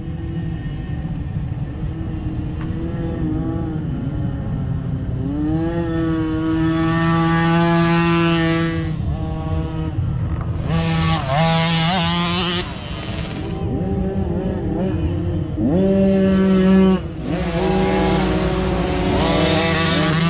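Small youth dirt bike engines revving as the bikes ride one after another through a muddy woods section. The engine note rises and falls with the throttle in several runs, loudest a little past the middle.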